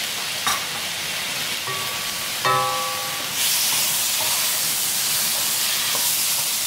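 Mushroom pieces sizzling in hot oil and masala in a steel wok while a metal spoon stirs them. About two and a half seconds in, the spoon clinks against the pan with a brief ring, and the sizzle grows louder about halfway through.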